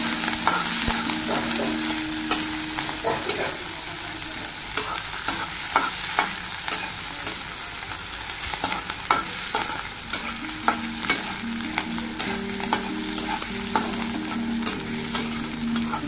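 Sliced onion, garlic and green chillies sizzling in mustard oil in an iron kadai, frying until the onion starts to colour. A spatula scrapes and clicks against the pan many times as they are stirred.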